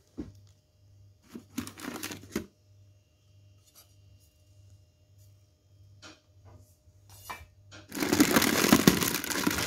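Short rustles and knocks of things being handled in a cardboard box, then from about eight seconds in a loud, steady crinkling of the plastic sheet wrapped around the pressure cooker as a hand pushes into it.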